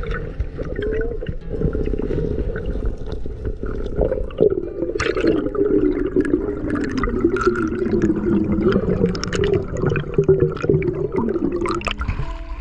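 Sea water sloshing and gurgling close to the microphone, with scattered small clicks and knocks.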